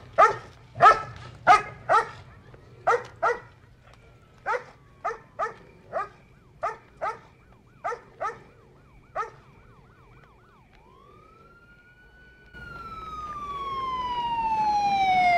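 A dog barking repeatedly, the barks growing fainter over about nine seconds. Then a police car siren comes in: first a faint fast warble, then a long wail that rises and slowly falls in pitch, growing louder over rising vehicle noise as the car approaches.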